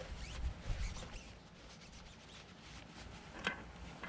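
Paper towel rubbing and rustling as old grease is wiped off a Mercruiser sterndrive's propeller shaft and housing. It comes as faint scratchy strokes, with two sharp ticks near the end.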